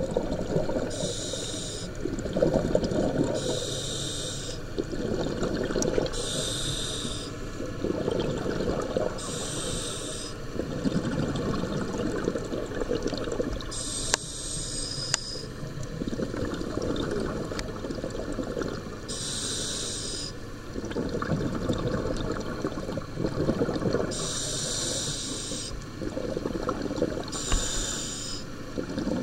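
Scuba diver breathing through a regulator underwater: about eight short hissing inhales a few seconds apart, each followed by a longer, lower bubbling rush of exhaled air.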